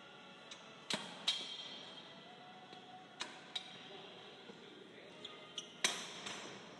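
Sharp metallic clanks and clicks with a short ringing tail, from the steel plates and selector pin of a cable machine's weight stack being handled. The loudest come about a second in and again near the end.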